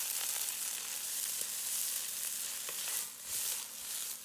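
Fresh rice noodles sizzling in oil in a hot wok while a wooden spatula stirs them, with a few faint knocks from the spatula. The sizzle swells briefly about three seconds in as the noodles are tossed.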